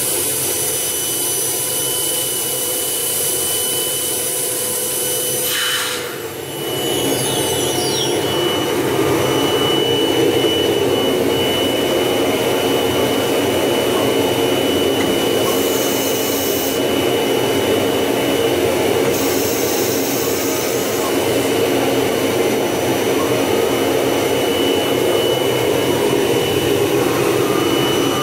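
Tekcel VSR CNC router running: a steady machine whine over a rushing noise. About six seconds in the sound briefly dips, with a few falling whistling tones, then comes back louder and fuller.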